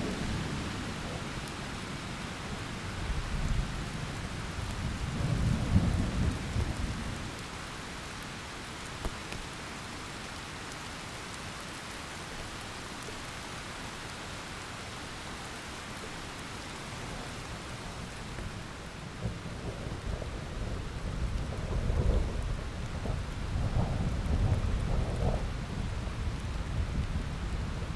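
Thunderstorm: steady rain with deep rolling thunder rumbles, one swelling about five seconds in and a longer stretch of rumbling in the last third, with steady rain between.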